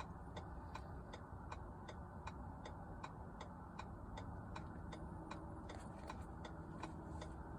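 Ford F-150 hazard-light flasher ticking in an even rhythm, about three faint clicks a second, with the hazards switched on.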